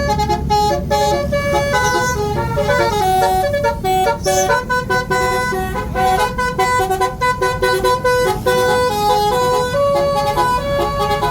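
Tourist bus's basuri telolet horn, a multi-note musical air horn, playing a melody of stepped, held notes over steady low engine noise.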